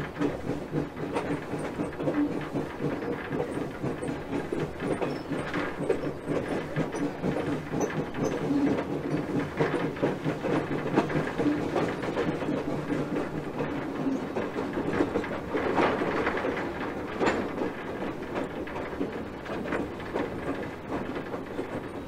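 Hocking Valley Scenic Railway no. 3, a 1920 steam locomotive, running along the track, heard close up at its front pilot: wheels clacking over the rail joints over the steady running noise of the engine, a little louder about two-thirds of the way through.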